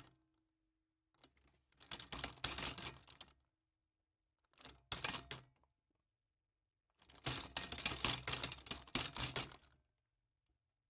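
Rolling utility cart pushed across a floor in three runs: a low rumble from the wheels under a dense rattle from the cart. The first run lasts about two seconds, the second about one, and the last, about three seconds long, is the loudest.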